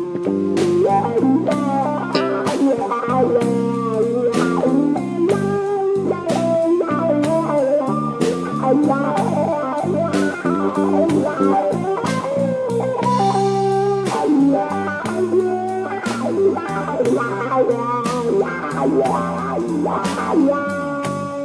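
Live slow blues trio playing an instrumental passage: electric guitar lead lines with string bends over bass guitar and a steady drum beat.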